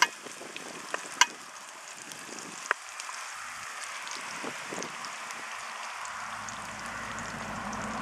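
Coarsely chopped onions sizzling in oil in an aluminium cauldron over a wood fire, being sweated until glassy. A few sharp clicks come in the first three seconds as they are stirred, and a low rumble comes in about six seconds in.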